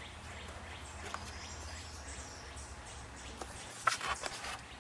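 Quiet outdoor background with a steady low rumble, and near the end a brief cluster of crisp paper rustles and taps as a hand turns a page of a booklet.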